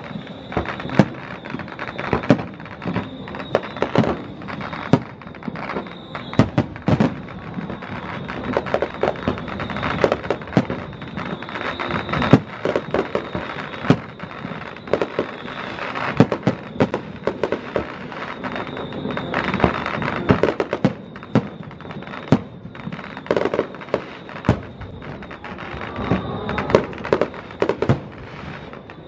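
Aerial fireworks shells bursting: a long run of sharp bangs, irregular and at times several a second.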